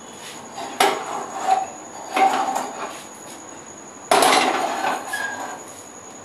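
A metal wok clattering on a gas stove's burner grate, with a spatula scraping inside it, as hot milk and caramel are stirred together. Three loud clatters come in the first four seconds or so, each trailing off with a short scrape.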